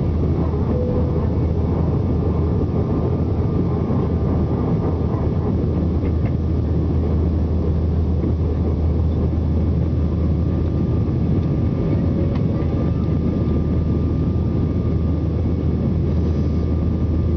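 Airbus A320 cabin noise during the climb after takeoff: a steady low rumble of the twin turbofan engines and the rushing airflow, heard from a seat over the wing, with a faint steady whine above it.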